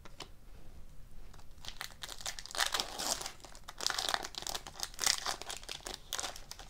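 Foil wrapper of a 2018-19 SP Authentic hockey card pack crinkling and tearing as it is opened by hand, in repeated bursts that start about a second and a half in.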